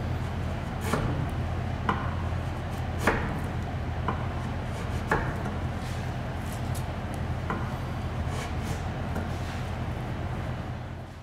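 Long paring chisel slicing across the end of an American black walnut trim strip by hand, with a series of short crisp cuts: about one a second at first, then fewer and fainter. A steady low hum runs underneath.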